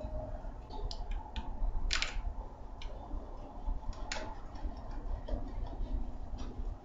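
Scattered short clicks and knocks, the loudest about two seconds in and another about four seconds in, as a small scoop is worked in a bucket of wet concrete and tipped into a box-shaped foundry mold.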